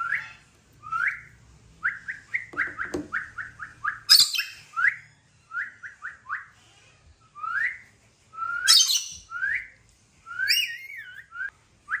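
Rainbow lorikeet calling: short rising chirps, some in quick runs of several a second, broken three times by loud, harsh, shrill screeches.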